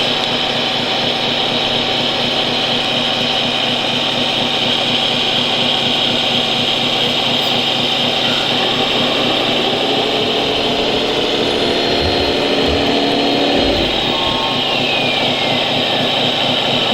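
Radio-controlled scale model trucks running: a steady, high motor and gear whine. Partway through, a pitched engine-like tone rises for a few seconds and then glides down in pitch.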